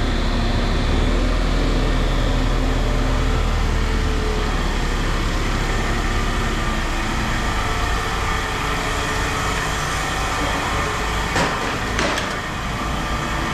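A vehicle engine running steadily, with two short knocks near the end.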